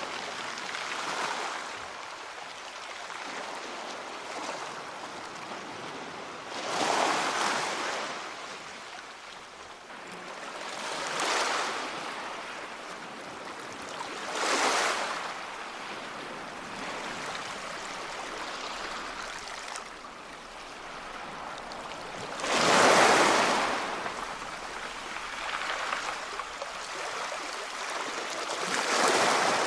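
Waves breaking and washing ashore: a steady rush of water that swells louder every few seconds, the biggest surge about three quarters of the way through.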